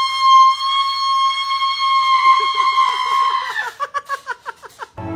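A young man's high-pitched sustained scream, held on one steady note. About three and a half seconds in, it drops and breaks into a quick stuttering run of short vocal pulses, about eight a second.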